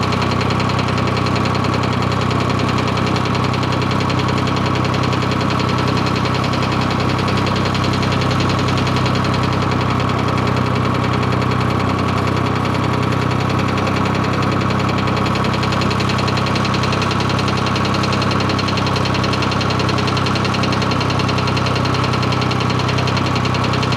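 Ford 4000 tractor engine idling steadily as it warms up, before the thermostat has opened to let radiator coolant through.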